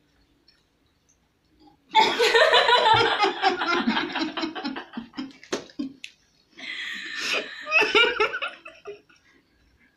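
A woman laughing hard with food in her mouth, a fast run of pulses starting about two seconds in, then a second burst of laughter about a second and a half later.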